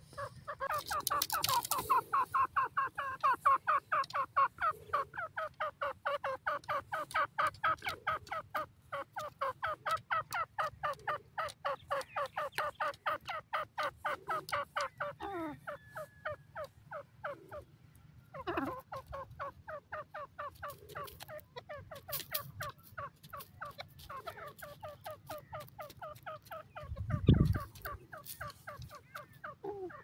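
Grey francolin calling: a rapid, unbroken series of repeated notes, about five a second, for roughly the first fifteen seconds, then in shorter, sparser bouts. A loud low thump near the end.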